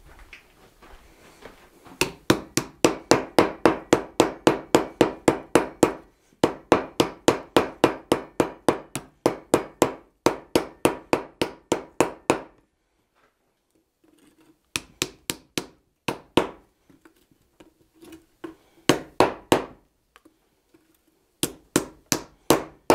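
Ball-peen hammer dishing red-hot 1/8-inch sheet iron on the end grain of a wooden stump. Rapid, even blows at about four a second start about two seconds in and run for some ten seconds, with one brief break. After a short pause come shorter bursts of blows.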